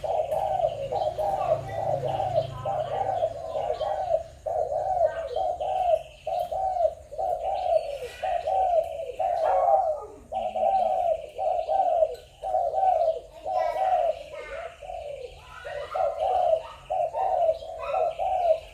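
Spotted dove cooing: a long run of repeated low coos, about two a second, broken by short pauses.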